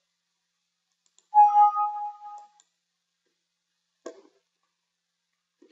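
Windows system alert chime: a single pitched ding that fades away over about a second, the prompt asking whether to replace a file that already exists. A short faint tick follows a few seconds later.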